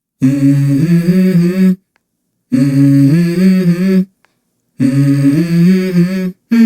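Music: a wordless hummed vocal line in three phrases of about a second and a half each, with short silent gaps between them.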